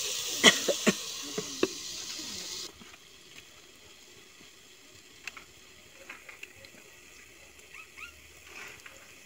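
Curry hissing and bubbling in a clay pot as a wooden spoon stirs it, knocking against the pot several times. The hiss cuts off abruptly about a third of the way through, leaving only faint ticks and a few short chirps.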